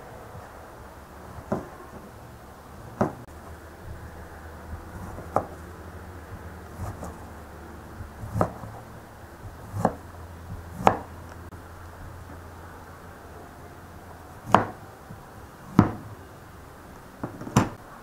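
Kitchen knife knocking on a cutting board as a cucumber is sliced: about a dozen separate sharp chops, spaced irregularly one to two seconds apart.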